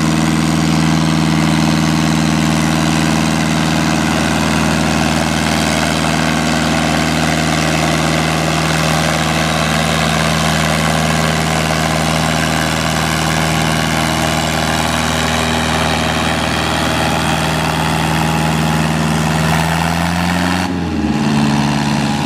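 Older green Deutz tractor's air-cooled diesel engine running at a steady, unchanging pitch while it drags a tractor-pulling sled. The engine note shifts and breaks briefly near the end.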